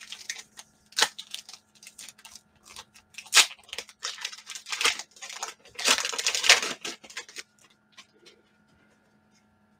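Foil wrapper of an Upper Deck trading card pack being torn open and crinkled in the hands: a run of crackles and short rips, the longest about six seconds in.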